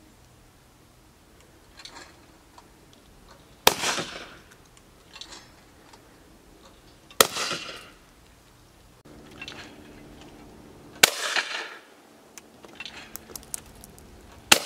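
Four over-and-under shotgun shots at clay targets, about three and a half seconds apart, each a sharp bang with a short echoing tail.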